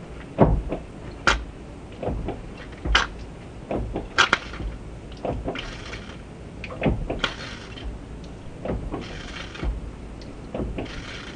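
Clutch fluid spurting from the opened bleeder screw on a 1994 Acura Integra's clutch slave cylinder in several short hissing squirts, the line being bled of air, among irregular clicks and knocks.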